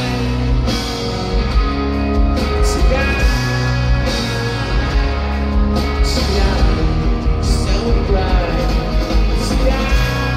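Rock band playing live through a large PA: drums, electric guitars and a heavy bass, with a sung vocal line. It is heard from within the crowd, with a loud, boomy low end.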